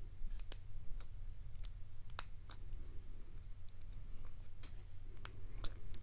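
Light, irregular clicks of a small metal tool working at the retaining clip on the back of a brass padlock key cylinder, the clip refusing to come off.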